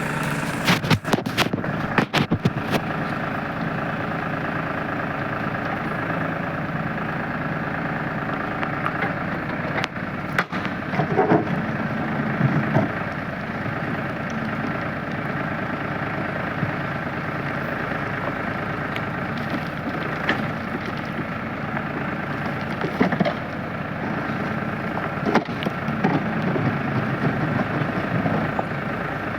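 Diesel engine of a tractor-mounted backhoe loader running steadily, with a cluster of sharp knocks and clatters in the first few seconds and a few more later.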